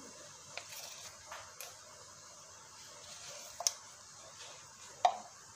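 Curry liquid of canned-fish water, onion and garlic simmering in a wok on a gas burner: a faint steady sizzle with a few scattered small pops, the loudest about five seconds in.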